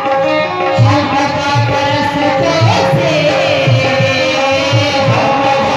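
Live band music accompanying a Hindi song on stage: a held melodic line over a steady drone, with a hand drum striking a regular low beat about twice a second.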